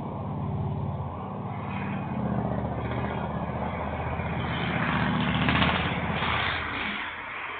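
A vehicle's engine running with a deliberately induced misfire as it drives past, rough and uneven, growing louder to its peak a little past halfway and then fading.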